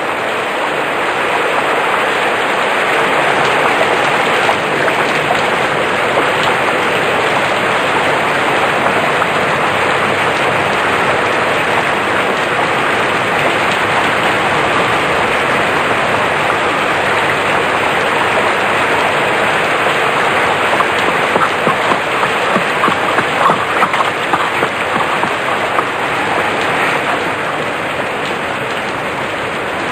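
Heavy rain pouring down in a dense, steady hiss, with a run of sharper spattering hits about two-thirds of the way through.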